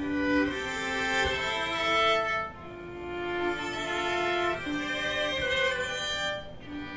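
Amplified string quintet of violins and cellos playing live, bowed notes held about half a second to a second each, with a brief drop in loudness about two and a half seconds in.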